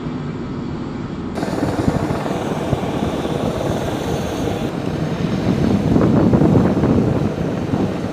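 Close-range AH-64E Apache attack helicopters hovering and landing: main rotor beating over the whine of the twin turboshaft engines, the sound changing abruptly about a second in and growing louder around six seconds in.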